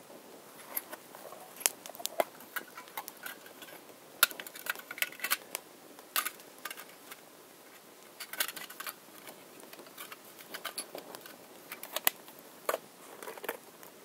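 Small twig fire crackling with irregular sharp pops, mixed with light clicks and clinks from fire-kit items (flint, steel striker, small tin) being handled; the clicks bunch up about four to six seconds in and again around eight seconds.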